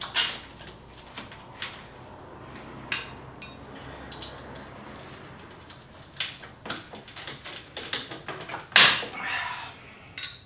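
Metal hand tools and parts clinking, clattering and knocking in irregular bursts, with one ringing metallic clink about three seconds in and a sharper knock near the end.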